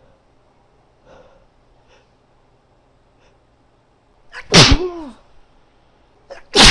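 A woman's wet, forceful sneeze about two-thirds of the way in, with a vocal tail that falls in pitch, after a few quiet sniffing breaths. A second sneeze breaks out right at the end.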